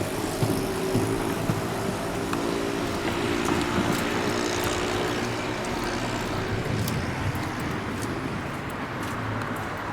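Road traffic: a motor vehicle's engine hum fading out over the first few seconds, over steady traffic noise.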